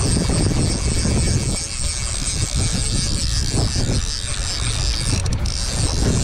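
Strong wind buffeting the microphone with a steady low rumble, over splashing river water.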